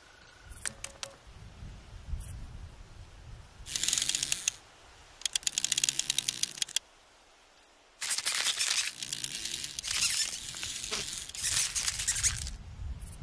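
Close-up insect sound effects: short bursts of scratchy rustling and a run of rapid clicking about five seconds in, then more scratchy rustling with clicks after a brief silence.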